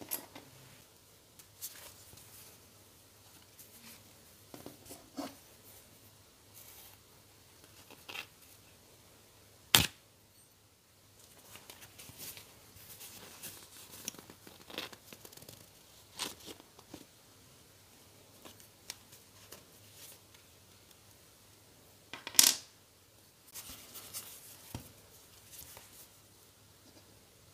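Small handwork on a leather wallet: scattered scrapes, rustles and light clicks of a pointed metal tool and fingers working at the prongs of a metal magnetic snap clasp. Two sharp metallic clicks stand out, one about a third of the way through and one near the end.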